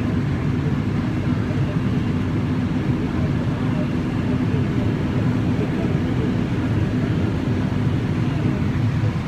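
Combine harvester running steadily, heard from inside the cab: a constant low engine and machinery drone with a steady hum.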